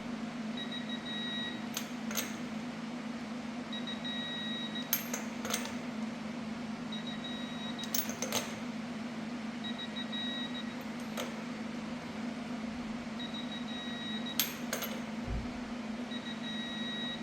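Click-type torque wrench set to 110 lb-ft, clicking as each lug nut is re-checked: sharp clicks, mostly in pairs, every few seconds. A steady low hum and a faint repeating high beep run underneath.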